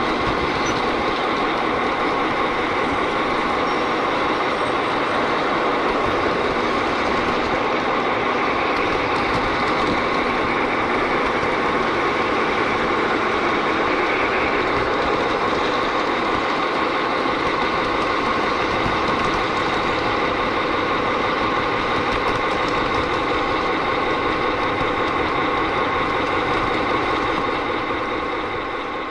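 Steady whir of a G-scale Bachmann Thomas the Tank Engine model locomotive's electric motor and gears, with wheel noise on the track, heard up close from a camera riding on top of the engine. It fades slightly near the end.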